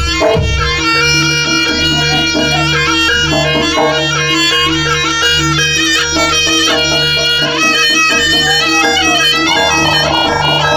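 Jaranan music: a shrill, nasal double-reed slompret plays a melody that moves in steps, over a steady low sustained accompaniment from the gamelan ensemble.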